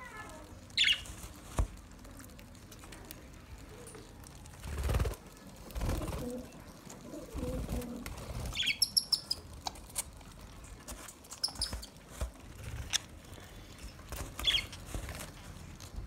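A flock of budgerigars at a seed dish: a few short high chirps now and then, wing flutters, and many small sharp clicks as they peck at the seed.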